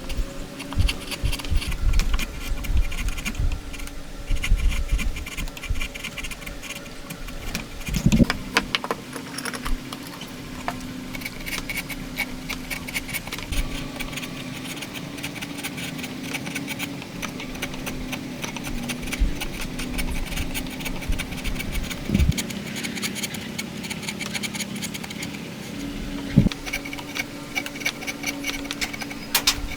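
Hand tools working wood: a long run of fast, repeated rasping strokes, with a few single knocks.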